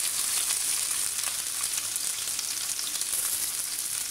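Sliced onions and green chilli sizzling in hot oil in a cast-iron kadai, just added to the pan: a steady hiss with many small crackles.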